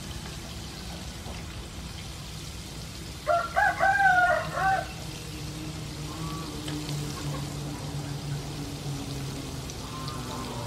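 Oil sizzling steadily as battered squid rings deep-fry in a pan. A rooster crows once, loudly, about three seconds in.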